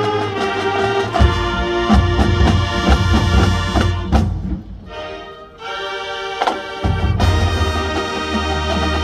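High school marching band playing in full: brass, woodwinds and drums together. About halfway through the music drops to a quieter, thinner passage, then the full band comes back in with heavy low brass.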